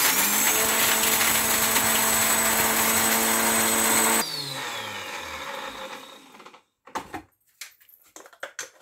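Small electric spice grinder (mixer-grinder) running at full speed, dry-grinding roasted whole spices into garam masala powder for about four seconds, then switched off and winding down with a falling pitch. A few light clicks and knocks follow as the grinder jar is handled and lifted off the motor base.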